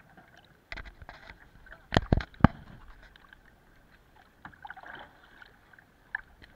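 Three sharp knocks close to the microphone on a plastic sit-on-top kayak, about two seconds in, amid water washing and splashing against the hull.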